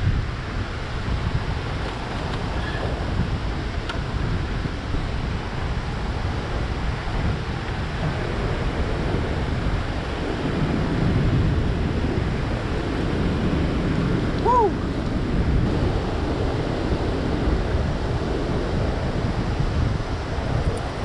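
Steady rush of water released through a dam's open spillway flood gates, churning past the boat, with wind buffeting the microphone. A brief falling chirp about two-thirds of the way through.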